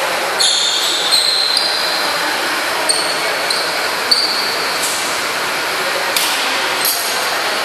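Sports shoes squeaking several times in short, high-pitched chirps on a wooden badminton court, over a steady hum of hall noise, with a few sharp taps in the second half.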